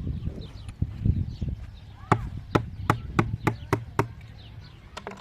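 A quick run of about seven sharp, ringing knocks, roughly three a second, as if something is being chopped or struck, with two more knocks near the end. Low thudding comes first, and faint bird chirps sound throughout.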